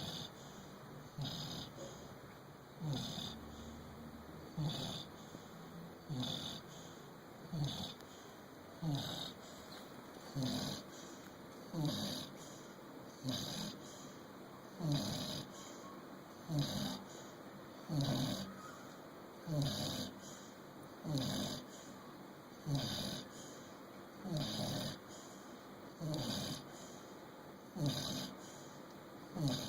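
Steady, rhythmic snoring, one short snore about every one and a half seconds, each falling in pitch.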